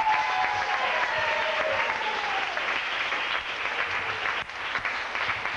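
Audience applauding, with one voice holding a long cheer that slowly falls in pitch over the first couple of seconds.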